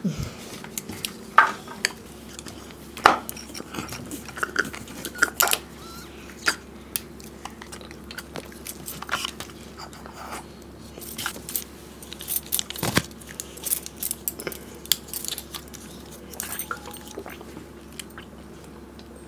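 Two people gulping mango drink from plastic bottles and small cartons: irregular short gulps, slurps and clicks of the packaging being handled and squeezed.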